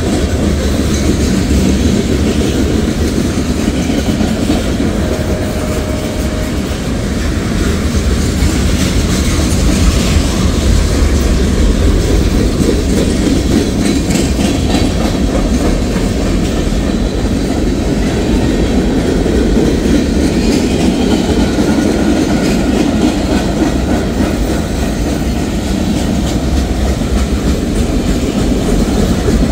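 Freight cars of a mixed manifest train rolling past: a steady, loud rumble of steel wheels on the rails.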